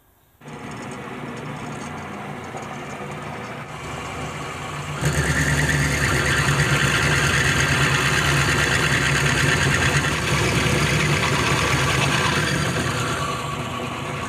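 Homemade lathe's electric motor switching on about half a second in and running with a steady hum. About five seconds in it gets much louder with a harsh scraping hiss as a twist drill cuts into the spinning steel back plate, easing off near the end.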